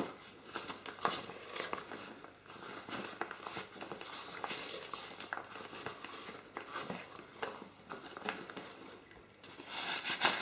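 Metal spoon scooping stiff dough out of a plastic bowl and pushing it into a piping bag: irregular soft clicks and scrapes, with the bag crinkling as it is handled.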